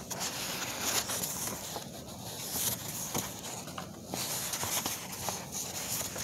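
Classroom background noise: a rustling hiss that swells and fades every second or so, with scattered light clicks.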